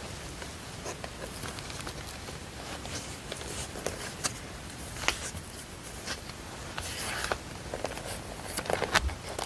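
Small desk-work noises of someone studying: scattered light taps and clicks and short scratchy rustles, over a steady low background hiss.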